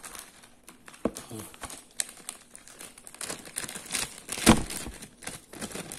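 Clear plastic zip-lock bag crinkling and rustling as a smartphone is slid into it and handled, with a louder bump about four and a half seconds in.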